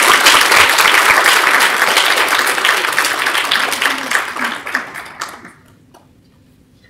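An audience applauding, the clapping thinning out and dying away about five and a half seconds in.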